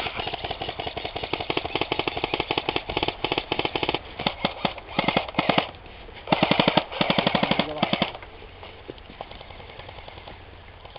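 Airsoft rifles firing on full auto: rapid clattering shots in long strings, then several shorter bursts, stopping about eight seconds in.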